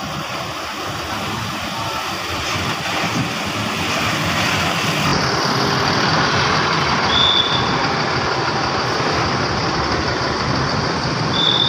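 A large diesel bus running as it pulls out, its engine and road noise growing louder about halfway through. A brief high-pitched tone sounds about seven seconds in and again near the end.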